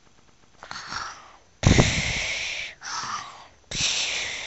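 A person imitating snoring with noisy breaths in and out. The breaths out are the loudest and come about one and a half and three and a half seconds in, each lasting about a second.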